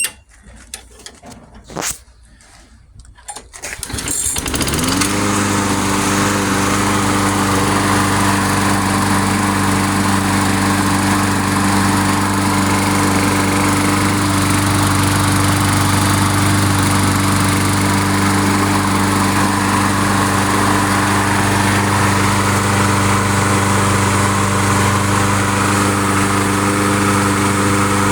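Briggs & Stratton 6.5 hp engine on a Craftsman mulcher lawn mower being started after a tune-up: a few knocks in the first seconds, then it catches about four seconds in, revs up and settles into a steady, even run that sounds pretty good.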